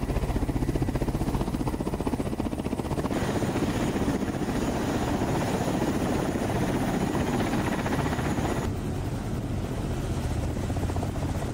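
Ka-52 attack helicopter's coaxial rotors and turbine engines running, a steady fast chop of blades over the engine noise. The sound changes abruptly about three and nine seconds in.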